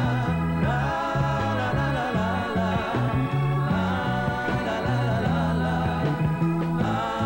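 Live 1970s Mexican pop band playing a steady instrumental passage: electric bass stepping through a busy line under drums, electric guitar and keyboard.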